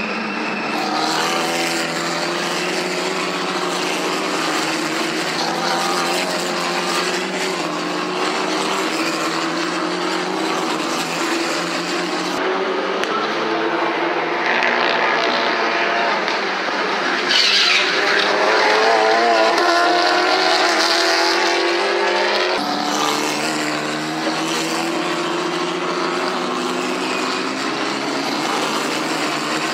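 Race car engines at high revs as cars drive past on a circuit, the engine notes shifting in pitch; Formula 4 single-seaters are the cars at the start and end. The sound changes abruptly twice, about 12 and 23 seconds in, and is louder and hissier for a few seconds in between.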